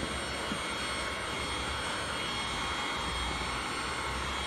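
Electric heat gun running steadily, its fan blowing a constant rush of air with a faint high whine, as it heat-shrinks window tint film to the curve of a windshield.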